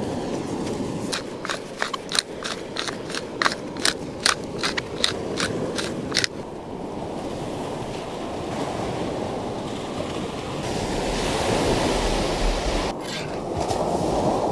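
Waves washing on a shingle beach, with wind buffeting the microphone and swelling about two-thirds of the way through. In the first half a run of about a dozen sharp, light clicks comes at a little over two a second.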